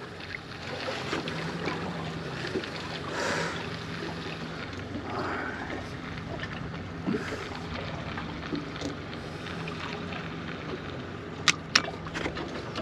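Wind and water noise around a small fishing boat at sea, with a faint steady low hum. Two sharp clicks come near the end.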